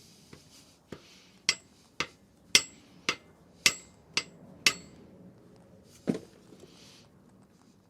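A hammer tapping a tight main bearing cap on a VW Golf GTI engine to loosen it: eight sharp metallic taps about two a second, then one more after a short pause. The cap is stuck and will not come free.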